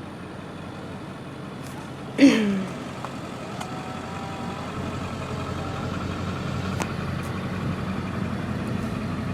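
Car driving, with a steady low engine and road rumble that grows louder about four seconds in. A brief falling voice sound comes about two seconds in.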